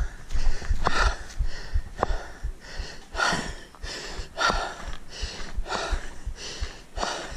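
A man panting heavily after a steep uphill climb, about one hard breath a second, with footsteps on a gravel path.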